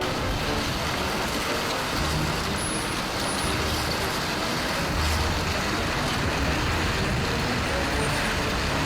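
Tsunami floodwater surging, a loud steady rushing roar with no break.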